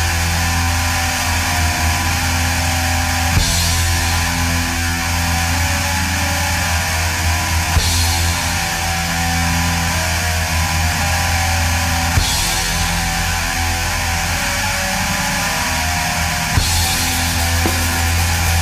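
Background rock music with guitar and a steady low bass line, the phrase repeating about every four and a half seconds.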